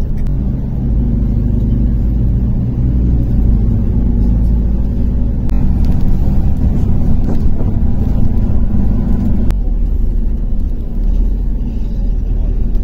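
A city bus's engine running and its road noise as it drives, heard from inside the cabin as a steady low hum. The engine note changes about nine and a half seconds in.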